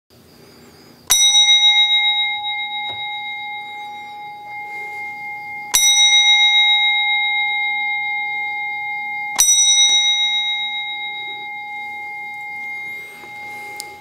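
A bell struck three times, about four seconds apart, each strike ringing out in a clear, steady tone that slowly fades.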